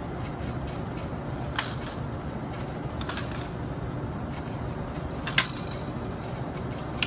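Metal parts of an AR-15 rifle being handled as it is opened up for takedown: four short sharp clicks and clacks, the loudest about five seconds in, over a steady low background noise.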